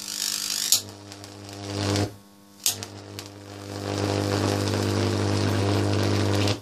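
A 40 kV AC arc drawn from two series-connected potential transformers, buzzing loudly at mains frequency with a crackling hiss. It goes out about two seconds in, re-strikes with a sharp snap, and builds to a steady loud buzz as it is drawn out to about 40 cm. It stops abruptly near the end.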